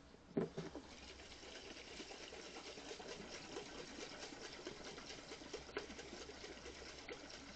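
Liquor and cream mixture sloshing rapidly in a glass mason jar shaken by hand. A short click about half a second in, then a steady run of fast sloshing that lasts to the end.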